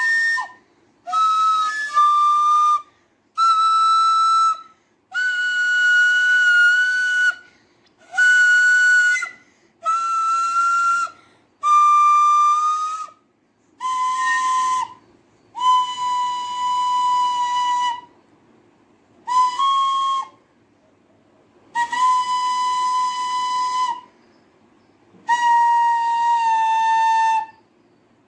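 A wooden end-blown flute played slowly: about a dozen separate held notes, each one to two seconds long, with short breaks for breath between them.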